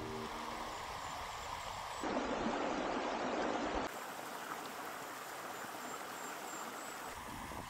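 Water running through a beaver dam and along a small creek: a steady rushing, louder for about two seconds a couple of seconds in, then settling to an even flow.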